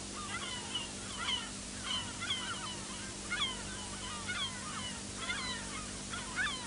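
A flock of gulls calling, many short squawks overlapping and repeating without pause, over a steady low hum.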